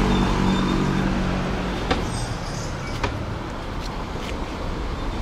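Street traffic: a passing car's engine fades out about a second and a half in, leaving steady street noise with a few short clicks.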